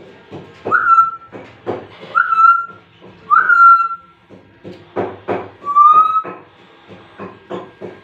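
A parrot, an African grey, whistling four times, each whistle a quick rise into a held note. Short, sharp noises come between the whistles.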